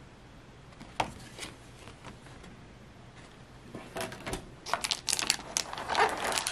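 Booster packs being pulled out of the box's clear plastic tray: a single click about a second in, then from about four seconds a quick run of plastic clicks and foil-wrapper crinkles.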